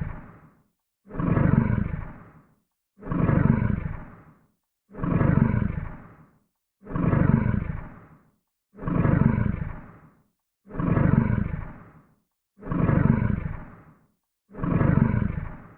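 Designed sound effect of a large creature breathing: deep, heavy exhalations repeating about every two seconds, each starting abruptly and fading out, with silence between. About eight breaths follow one another at an even pace.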